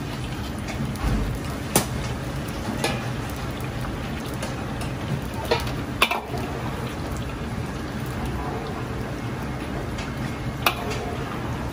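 Oil bubbling and sizzling as food deep-fries in a large iron wok over a steady low rumble from the gas wok burner. Several short metallic clinks come as the ladle and wire strainer knock against the wok.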